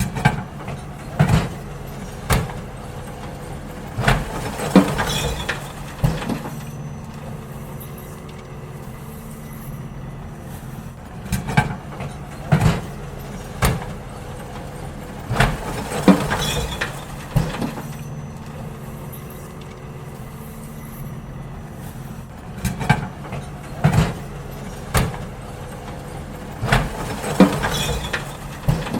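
Garbage truck running steadily while bins are emptied into it, with bursts of bangs and clattering several times over the engine's hum.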